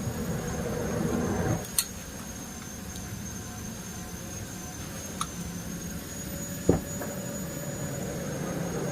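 A steady low mechanical hum that swells for about a second and a half and then drops back, with three short sharp clicks spread through the rest of it.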